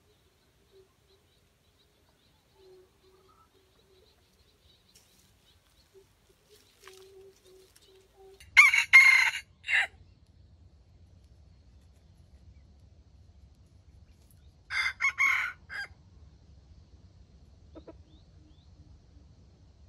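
A junglefowl rooster crowing twice, each crow short and broken into a few parts, about six seconds apart.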